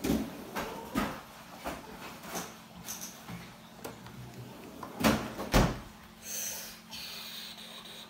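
A series of sharp household knocks and clicks. The loudest are two heavy knocks about half a second apart, roughly five seconds in, followed by a short high rattle.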